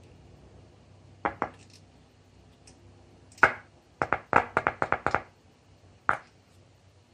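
Sharp clicks and knocks over a faint hum: two about a second in, one in the middle, a quick run of about eight over the next second, and one more near the end, as the speaker lead, loudspeaker and phone are handled.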